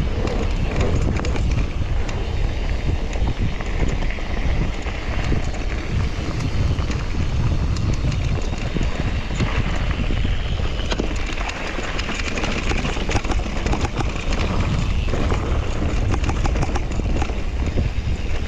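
Mountain bike riding fast down a rough dirt trail: a steady rumble of wind on the microphone and tyres on the ground, with constant small knocks and rattles from the bike.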